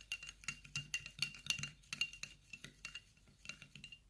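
Metal spoon stirring sugar into strained red onion juice, tapping and clinking against the side of the container several times a second with a short ring on each tap, stopping near the end.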